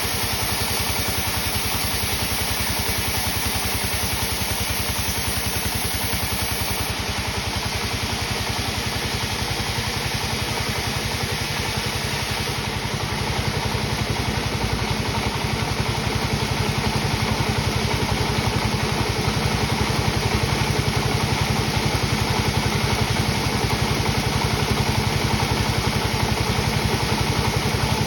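Sawmill machinery running steadily with an engine-like drone and a fast, even pulse. It gets a little louder about halfway through.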